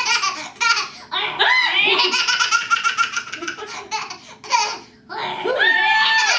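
A toddler girl laughing hard in fits of rapid belly laughs that break off and start again, with a long high-pitched held squeal near the end.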